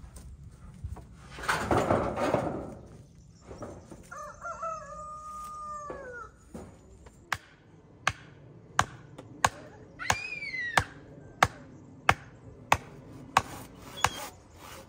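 A rooster crows once, a rising, held, then falling call lasting about two and a half seconds, starting about four seconds in; a shorter, higher falling call comes about ten seconds in. A loud noisy burst comes about two seconds in, and from about halfway sharp knocks repeat roughly every two-thirds of a second.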